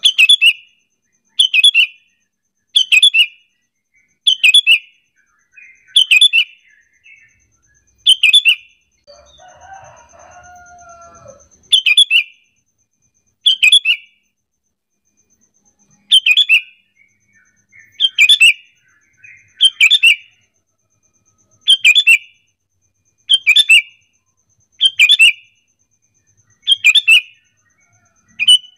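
Sooty-headed bulbul (kutilang) calling: short, bright calls repeated about every one and a half seconds, a lure call meant to set other bulbuls answering. Around ten seconds in, the calls pause and a quieter, lower gliding sound is heard.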